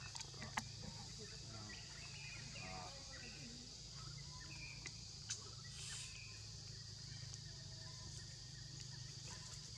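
Outdoor ambience: a steady high-pitched insect drone over a low hum, with a few sharp clicks scattered through it.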